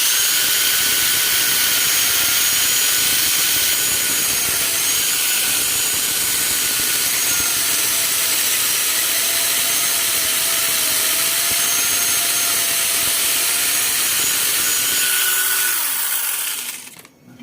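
Angle grinder driving a chainsaw adapter, its chain cutting wood: a loud, steady run with a high whine over the cutting noise, dying away near the end.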